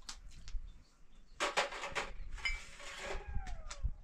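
Metal dishes and a pot clinking and scraping as they are handled and washed by hand, with several sharp clinks near the start and bursts of clatter later on.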